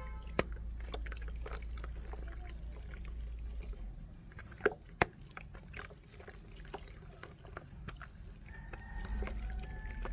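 Dry multani mitti (Fuller's earth clay) crunching and crumbling in a rapid irregular series of sharp crackles, with two louder snaps about halfway through.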